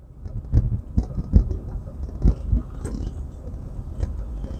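Vehicle driving along a road: a steady low rumble with several irregular knocks and rattles from bumps in the surface.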